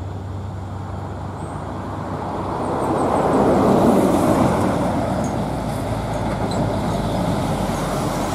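Road traffic: a Hino 500 box truck's diesel engine running steadily as it approaches, under tyre and road noise that swells about three to four seconds in and then holds.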